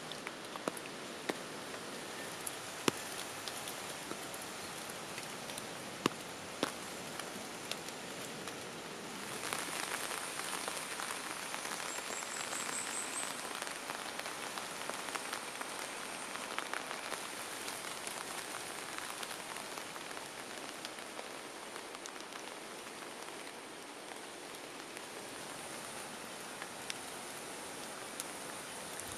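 Steady patter of rain with scattered sharper drips, getting somewhat louder about ten seconds in. A brief run of high chirps comes a little after that.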